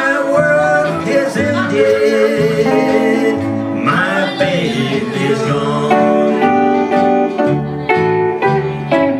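Live trio of archtop electric guitar, acoustic guitar and upright double bass playing, the bass stepping from note to note underneath and a wavering melody line on top.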